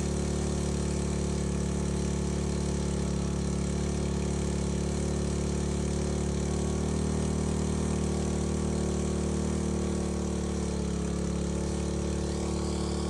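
Small petrol engine of a portable fire pump running steadily at constant speed, drawing water from a tank to feed a fire hose.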